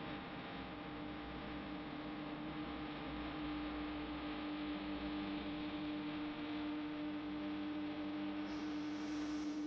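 A steady hum with one strong held tone.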